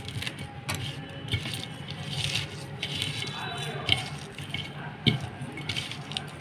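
Fingers crushing and mashing red chillies and coriander leaves against a stainless steel plate: wet squishing with scattered small clicks and scrapes on the steel.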